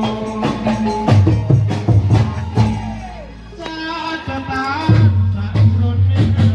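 Live Javanese gamelan music accompanying a reog dance: drum strokes and percussion over deep sustained gong-like tones, with a bending melodic line on top. The music thins briefly about halfway through, then comes back full.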